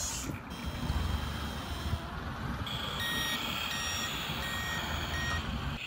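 Sound module of an RC model Linde H40D forklift giving its reversing beep as it backs away with a lifted pallet, starting about halfway through with about four evenly spaced beeps over a low motor hum.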